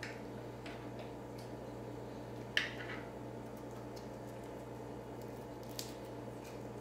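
Faint handling noises of computer power-supply cables and plastic connectors being worked by hand: scattered light clicks and rustles, with two sharper clicks, one about two and a half seconds in and one near the end, over a steady low hum.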